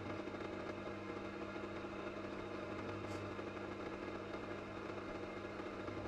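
Bench drill press motor switched on at the start and running with a steady hum, as the bit is fed down into metal held in the vice.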